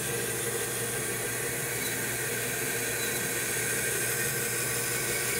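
Bandsaw running, its blade cutting a curve through a thick walnut block: a steady, even hiss with a faint steady hum underneath.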